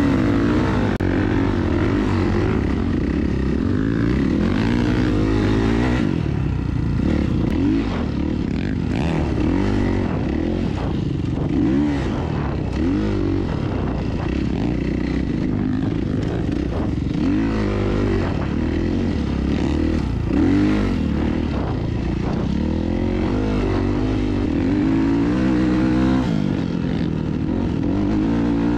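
Kawasaki KX450F single-cylinder four-stroke dirt bike engine running hard under riding, its pitch rising and falling again and again as the throttle opens and closes.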